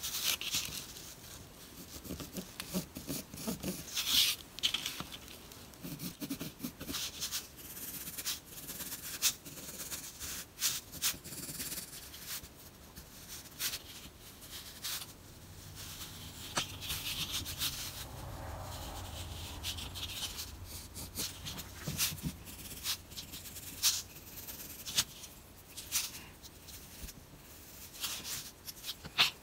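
Pencil drawing on a wooden bait blank: short scratchy strokes of the lead on the wood at irregular intervals, with small clicks and taps as the blank is handled.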